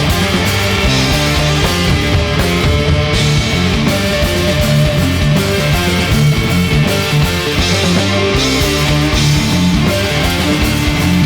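Stoner rock band playing at full, steady loudness: electric guitars, bass guitar and drums.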